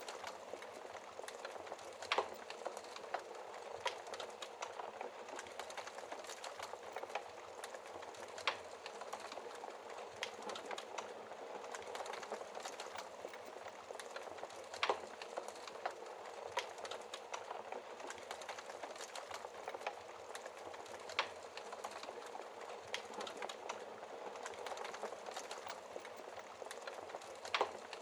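Wood fire crackling steadily over a soft hiss, with irregular sharp pops, the loudest about every six seconds.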